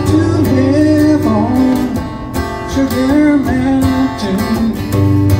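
A man singing a slow folk melody to his own strummed acoustic guitar.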